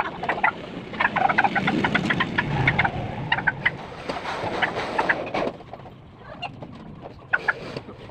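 Chickens clucking in a string of short, sharp calls, with a rushing noise underneath from about one second in to about five and a half seconds in.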